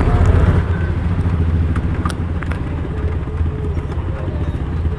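Motor vehicle running, a steady low rumble, with a few light clicks about two seconds in.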